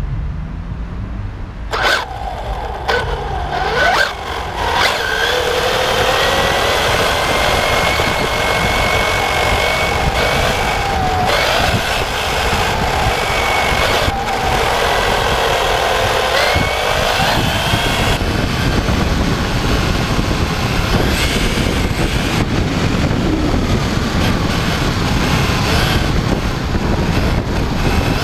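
Onboard sound of a Kyosho MP9e TKI3, a 1:8 electric RC buggy, driven fast on asphalt. A few sharp clicks come early, then the electric motor's whine rises and falls with the throttle over constant tyre and wind noise. In the later part the whine fades into the road and wind noise.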